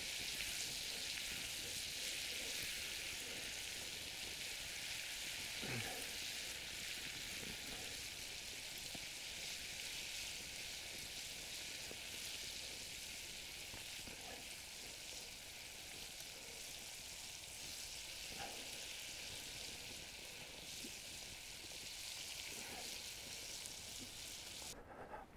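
Battered chicken pieces deep-frying in a pot of hot oil: a steady sizzle that stops abruptly near the end.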